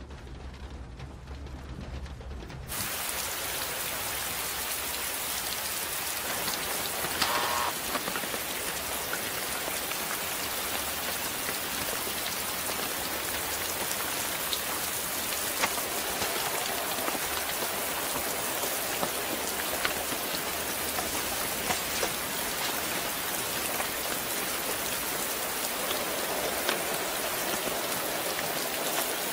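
A low hum for the first few seconds, then steady rain cuts in suddenly and falls evenly, with a few faint clicks.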